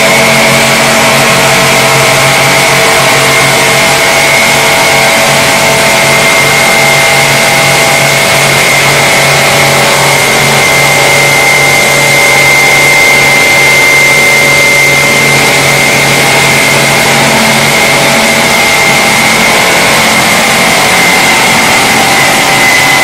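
Automatic tank polishing machine running: motor-driven polishing wheels on a stainless steel tank, a loud steady mechanical hum with a steady high whine.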